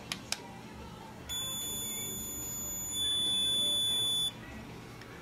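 Handheld moissanite tester's buzzer sounding one continuous high beep for about three seconds, growing louder about halfway through and cutting off sharply: it is flagging a piece of glass as moissanite, a false positive. Two short clicks come just before it.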